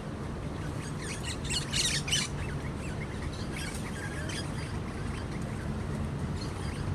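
Birds calling: a quick cluster of high chirps and squawks over the first couple of seconds, a few more in the middle, and a faint one near the end, over a steady low background rumble.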